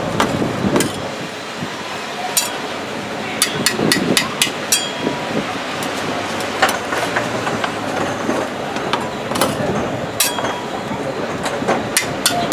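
Two steel spatulas tapping and scraping on a rolled-ice-cream cold plate while chopping cherries: irregular sharp metallic clicks, in a quick cluster about four seconds in and scattered taps after that.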